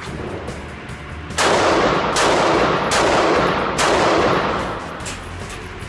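Four shots from a Glock 26 9mm subcompact pistol, fired about one every 0.8 seconds. Each shot rings on in a long echo inside the indoor range. A fainter single report follows near the end.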